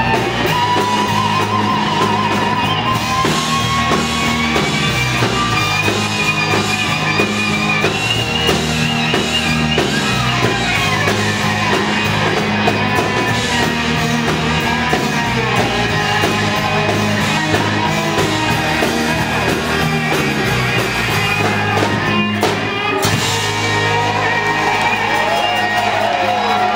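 Live rock band playing an instrumental passage on electric guitars, bass guitar and drums, with a wavering lead guitar line that climbs higher over the first several seconds. A short break comes about 22 seconds in before the band carries on.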